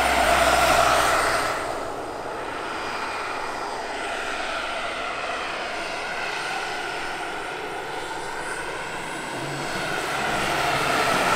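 Turbine-powered scale model Eurocopter H145 helicopter in flight: a steady turbine whine with rotor noise, loudest in the first second or two and again near the end as it passes close.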